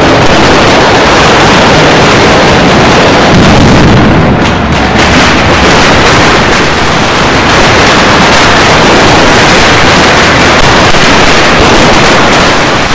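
Dense, continuous barrage of firecrackers exploding among a crowd. The bangs come so fast that they blur into one unbroken din, very loud throughout.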